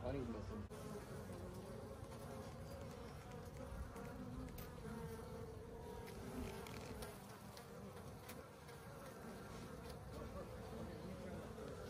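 Honeybees buzzing in a steady hum as a crowded frame of comb is held up out of the hive.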